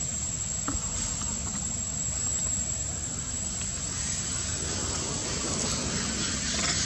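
Steady outdoor background noise: a low rumble that sounds like wind on the microphone, with a hiss and a thin, steady high-pitched whine over it. A couple of faint clicks come about a second in.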